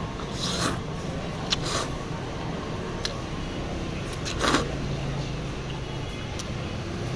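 A person slurping hot chicken noodles off chopsticks: a few short slurps, the loudest about half a second, nearly two seconds and four and a half seconds in, over a steady low hum.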